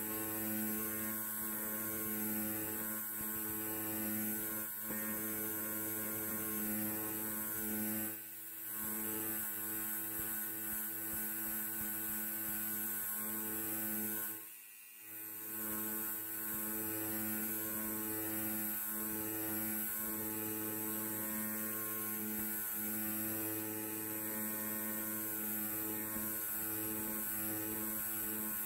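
Electric hair clipper running with a steady, even-pitched buzz that drops away briefly twice, about eight and fifteen seconds in.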